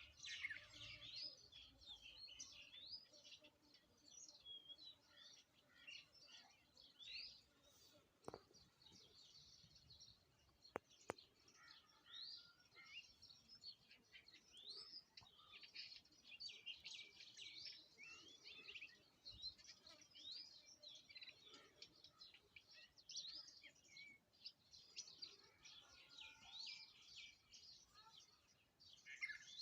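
Many small birds chirping and twittering together in a quick, overlapping chorus of short high notes, faint throughout. Two faint clicks about a third of the way in.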